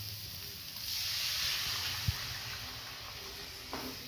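Water poured into a pan of hot sautéed vegetables, hissing and sizzling as it hits the hot oil. The hiss is loudest about a second in, with a soft knock about two seconds in.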